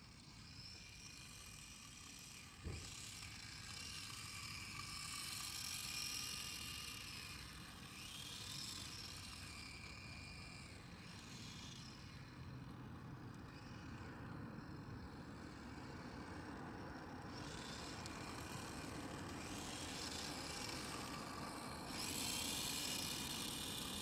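Electric RC drift car running on asphalt, its motor whine rising and falling with the throttle over a hiss of tyres. There is one sharp click about three seconds in. It grows louder near the end as the car comes close.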